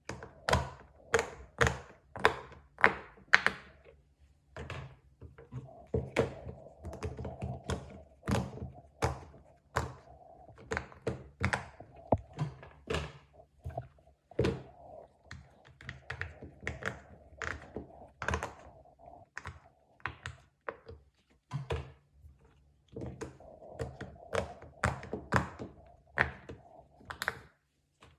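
Plastic fidget toys being handled: a steady run of taps, clicks and soft thunks, from one to several a second, with stretches of rustling in between.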